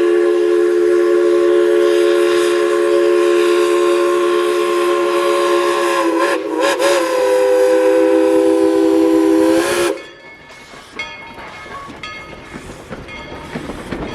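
Steam locomotive's chime whistle blowing one long, loud chord of several notes, wavering briefly about six seconds in and cutting off sharply about ten seconds in. After that, quieter clicking and rattling from the moving train.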